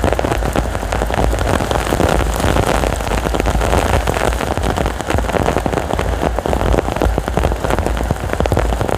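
Heavy rain pouring steadily with strong wind, a dense hiss of drops with a deep rumble underneath.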